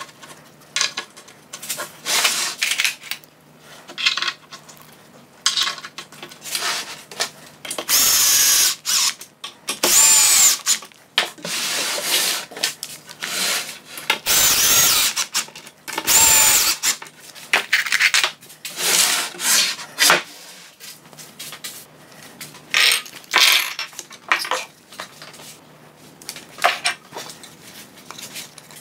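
Cordless drill-driver driving confirmat screws into 18 mm chipboard panels in several short runs, its whine rising and falling as each screw goes in. Short knocks and clatter of the panels being handled come between the runs.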